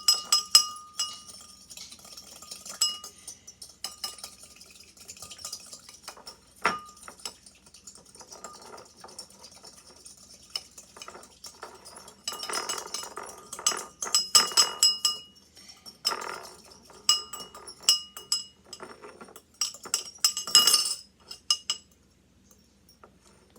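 A small fork stirring and clinking against a bowl, with a ringing tone after the strikes, as baking soda is mixed into warm water that it is slow to dissolve in. The stirring stops briefly near the end.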